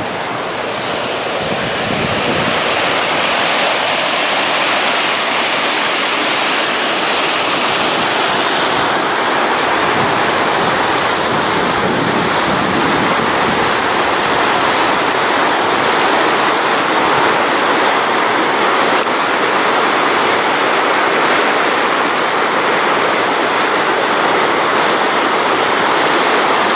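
Flash-flood runoff rushing through a drainage channel at a road culvert, a loud, steady rushing of water that builds over the first couple of seconds.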